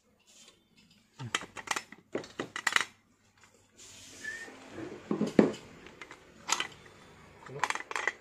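Metal clinks and knocks from handling a stainless-steel Prestige Clip-on pressure cooker lid while its safety valve is pressed into place and the lid is turned over. A scatter of sharp taps, the loudest knock about five seconds in.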